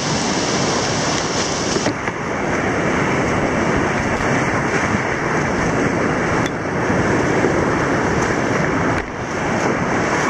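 River rapids rushing and splashing around an inflatable boat as it rides through whitewater, heard close up. The sound is a steady loud rush that changes character abruptly twice, about 2 seconds and 9 seconds in.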